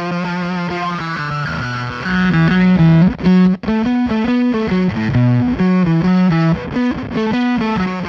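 Distorted electric guitar played through a chain of effects pedals, its notes changing in quick stepping runs, with a brief drop-out about three and a half seconds in.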